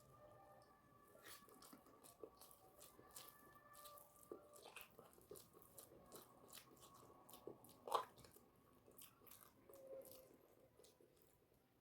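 A person chewing and crunching food close to the microphone, with many small wet mouth clicks and a sharper click about eight seconds in. The sound is quiet overall.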